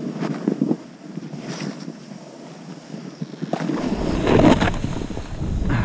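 Skis turning through snow, a scraping swish with each turn, under wind rushing on the microphone. A deep wind rumble on the microphone comes in about two-thirds of the way through and the whole grows louder.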